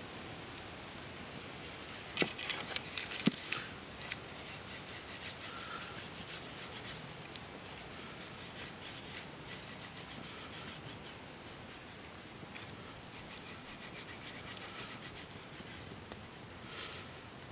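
Fingers rubbing wet white pipe-clay paste, first on the mixing stone and then into the carved grooves of a wooden club: a run of light, scratchy rubbing strokes. A few louder knocks and clicks come about two to three seconds in.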